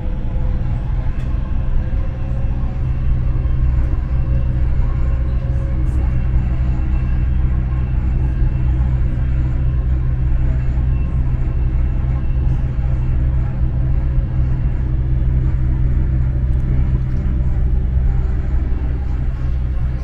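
Cabin noise of a Dubai Metro train running at speed along its elevated track: a steady low rumble.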